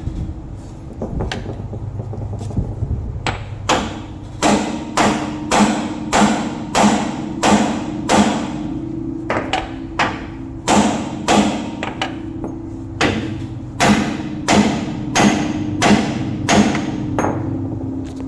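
Repeated hammer blows on steel, about a dozen and a half evenly paced strikes, roughly one and a half a second, each ringing briefly: hammering on a car's front spindle to break loose the ball joint taper.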